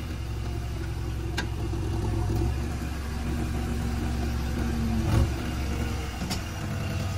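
JCB 3DX backhoe loader's diesel engine running steadily, with a short knock about five seconds in.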